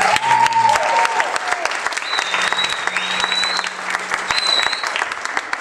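Audience applauding with dense hand clapping and cheering, with a high steady whistle from the crowd for a couple of seconds midway.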